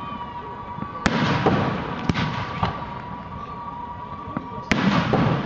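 Aerial fireworks shells bursting: a loud bang about a second in, several smaller bangs after it, and another loud burst near the end. Each bang is followed by a short low rumble.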